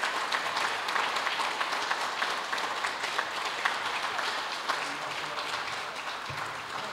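Guests applauding, many hands clapping, the clapping thinning out toward the end.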